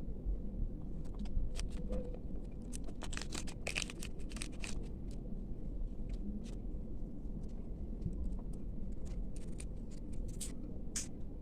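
Small packaging being handled and opened by hand: scattered crinkles, scrapes and small clicks, thickest a few seconds in and again near the end, over a steady low hum.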